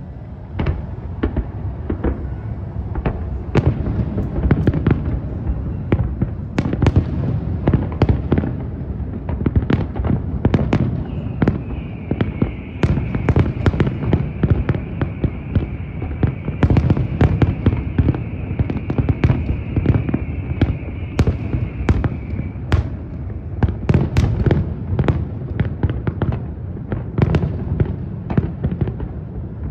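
Aerial fireworks display: shells bursting in rapid, overlapping bangs over a continuous low rumble. A steady high whistle rises over the bangs for about ten seconds in the middle.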